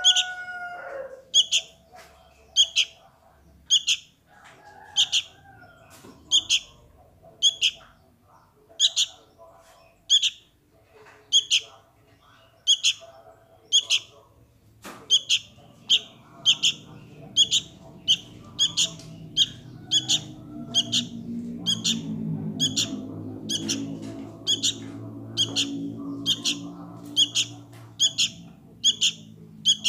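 A sooty-headed bulbul fledgling begging, calling for its parent with short, sharp, high chirps repeated about once a second, coming faster in the second half. A low rumble swells up in the background in the second half and fades again near the end.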